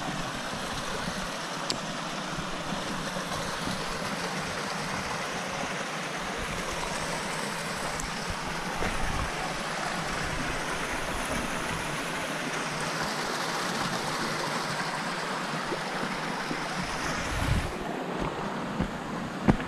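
Steady rush of flowing water from a stream or waterfall. Near the end the hiss thins and a few sharp knocks are heard.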